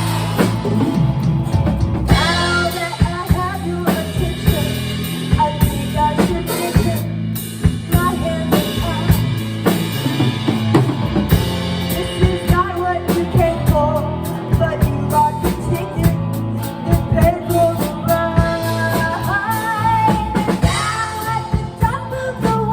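A rock-style song played on a full drum kit with a melody line over it that slides in pitch.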